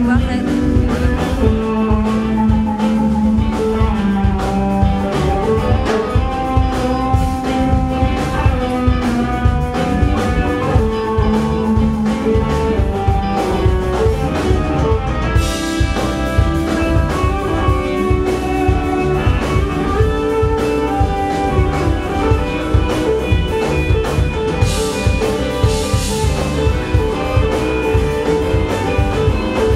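Live band playing a song: electric guitar over bass and a steady drum-kit beat, with cymbal crashes about halfway through and again near the end.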